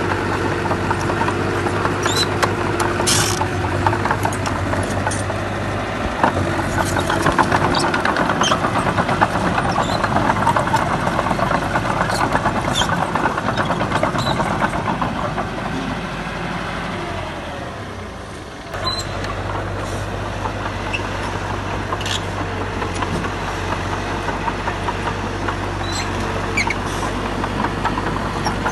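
Diesel engine of a Komatsu D31P crawler bulldozer running steadily, with sharp clanks and rattles of tracks and stone scattered throughout. Near the two-thirds mark the sound fades a little, then cuts abruptly back in at a steadier engine note.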